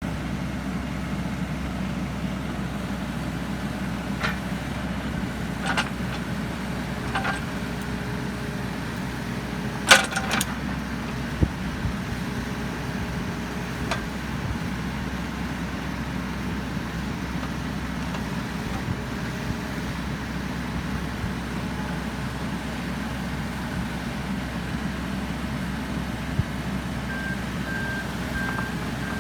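The Yanmar 1.267 L diesel engine of a Wacker Neuson EZ28 mini excavator runs steadily, with a few sharp metallic knocks, the loudest about a third of the way in. Near the end a beeping alarm starts, pulsing at an even rate.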